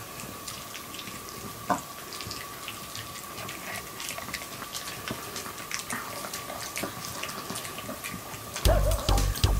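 Maltese dogs gnawing and mouthing a dog chew stick: wet smacking and small clicking sounds, one louder click about two seconds in. Background music starts near the end.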